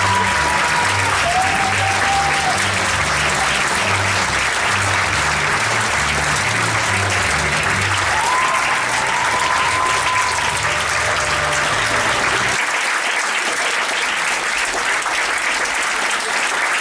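Theatre audience applauding steadily through a curtain call. Music with a repeating bass line plays underneath and cuts off about three-quarters of the way through, leaving the applause alone.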